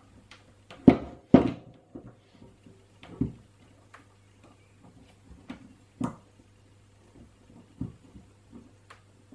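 Irregular clicks and knocks as a metal helping-hands PCB holder is handled and adjusted and a circuit board is clamped into its alligator clip. The two loudest knocks come about a second in, over a faint steady low hum.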